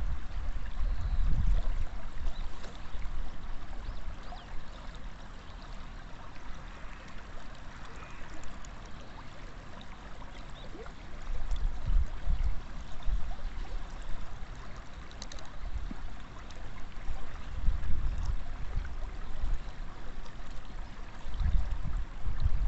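Shallow water flowing and trickling steadily along a rocky bank, with wind rumbling on the microphone now and then.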